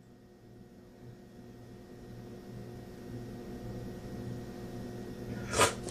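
A steady low electrical hum from a kitchen appliance, slowly getting louder, broken near the end by one short, sharp burst of noise.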